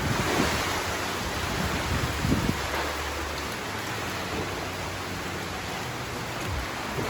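Typhoon rain and wind making a steady rushing noise, with low buffeting rumbles in the first couple of seconds that then ease off.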